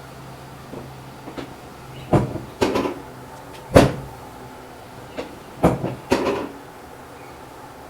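Sharp cracks and knocks during a chiropractic adjustment, about seven of them in two clusters: several from about two seconds in, the loudest a little under four seconds in, then another group around six seconds.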